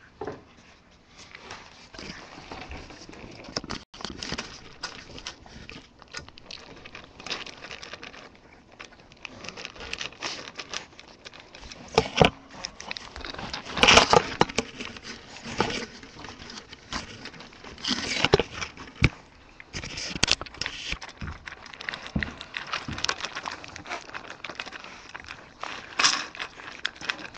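Bulldog puppies eating dry kibble from a stainless-steel bowl: irregular crunching and clicking of kibble against the metal, with louder clusters every few seconds.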